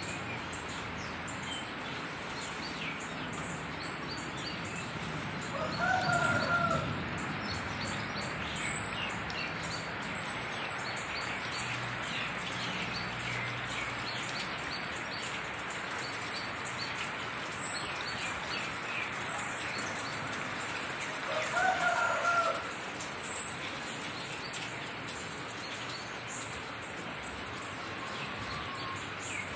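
Steady hiss of rain with many small birds chirping throughout. Twice, once about six seconds in and again about twenty-two seconds in, a louder pitched animal call sounds for about a second.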